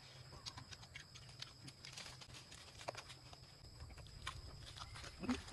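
Faint chewing and mouth clicks of people eating grilled duck meat by hand, scattered soft ticks over a low steady hum.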